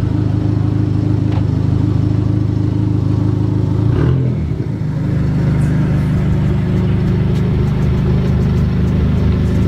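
Car engine running steadily, with a short change in pitch, like a brief rev, about four seconds in.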